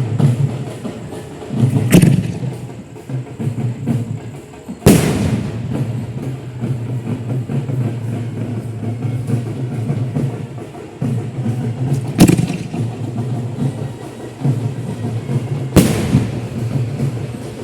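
Six-inch display firework shells bursting: four sharp, loud bangs a few seconds apart, each trailing off briefly, over a continuous low rumble.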